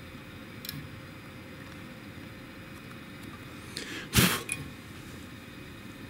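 Lever microswitch Z-probe on a 3D printer clicking as it touches the bed. There is a faint click just under a second in, a few small ticks, then one sharp loud click about four seconds in followed by a smaller one, over a steady low hum.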